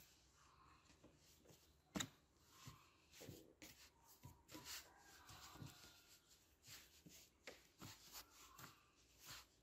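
Faint irregular pats, presses and rubbing of hands kneading a soft dough on a floured wooden board, with one sharper knock about two seconds in.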